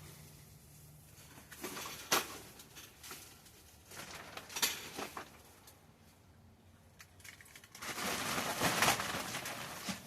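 Handling noises: a few sharp knocks and light clatter, then a longer rustling, scraping noise near the end as things are moved about.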